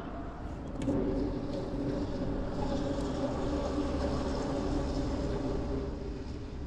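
A boat motor running at a steady pitch, coming up about a second in and easing off near the end.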